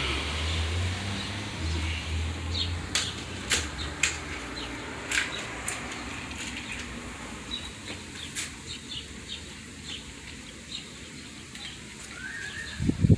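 Door hardware and hand tools being handled: scattered light clicks and knocks, with a low hum during the first three seconds.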